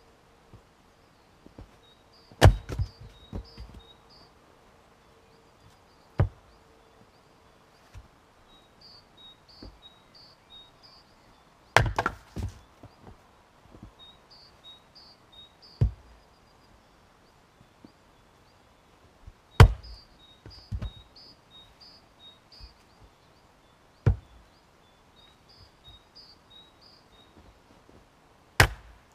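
Fiskars X25 splitting axe chopping firewood, one-handed: seven sharp chops about every four seconds as the axe bites into and splits the logs. Several chops are followed by a few smaller wooden knocks.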